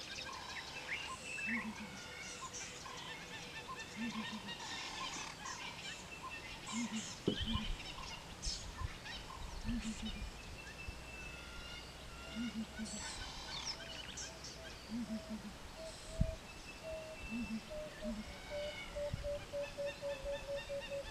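Several wild birds calling and chirping at once, with a low two-part call repeating every couple of seconds. A couple of low thumps, the loudest about two-thirds of the way through.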